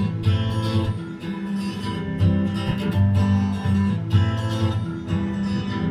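Instrumental passage of a pop song, mainly strummed acoustic guitar over a steady bass line, played back through an Edifier speaker.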